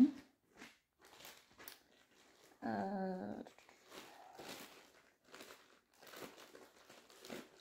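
Quiet rustling and scattered light clicks of things being handled, with a short hummed vocal sound about three seconds in.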